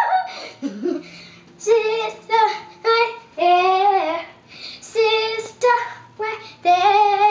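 A young girl singing, in a string of short high-pitched phrases with some held notes and brief gaps between them.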